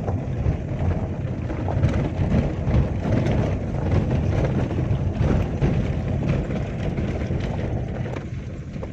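Car cabin noise while driving over a rough, stony dirt track: a steady low rumble from engine and tyres, broken by frequent knocks and rattles as the car jolts over ruts and stones.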